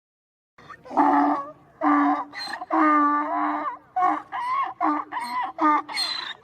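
Donkey braying: a run of quick, see-sawing calls starting about half a second in, with one longer held note near the middle.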